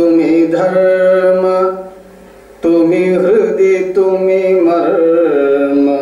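Slow Indian classical-style singing: a voice holding long, wavering notes in phrases of about two seconds, with short breaks between them.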